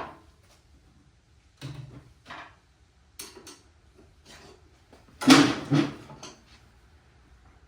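Metal clunks and scrapes as a loosened rear axle is pulled out of a 1968 BSA Shooting Star's rear wheel hub, with a few separate knocks and the loudest clatter about five seconds in.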